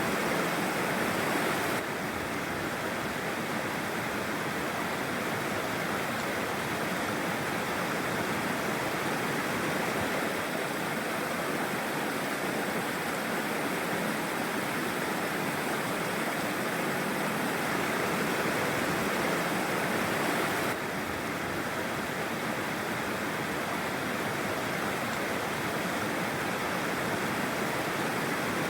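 Mountain stream rushing and splashing over rocks, a steady, even wash of water noise. The level dips slightly twice, about two seconds in and again near 21 seconds.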